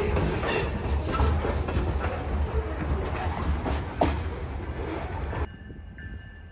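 Freight train covered hopper cars rolling past close by: a steady rumble of wheels on rail, with a sharp clack about four seconds in. About five and a half seconds in the sound cuts abruptly to a much quieter low, distant rumble.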